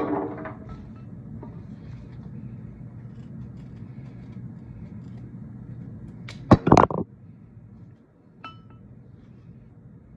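Rose stems being cut with scissors and set into a cut-glass vase: a quick cluster of sharp snips and clinks about six and a half seconds in, with a brief glassy ring, and a single faint clink of glass a couple of seconds later. A low steady hum runs underneath.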